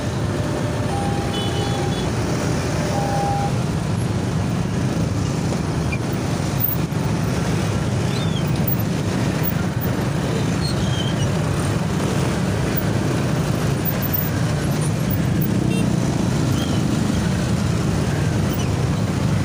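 Many motorcycle and auto-rickshaw engines in dense, slow city traffic, running steadily as the crowd idles and creeps forward.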